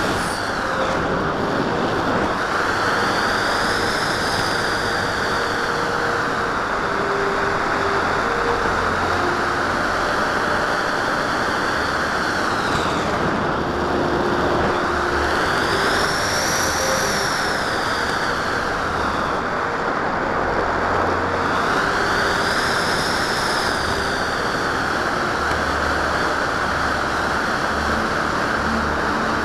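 Airflow rushing past a camera mounted on a Windrider Swift radio-controlled model glider in flight: a steady rushing noise, with a high whistle that rises and falls in pitch a few times.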